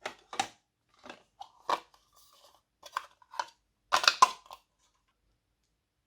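Glossy slime being squeezed and worked by hand, giving a run of short wet clicks and pops, with a quick cluster of them about four seconds in.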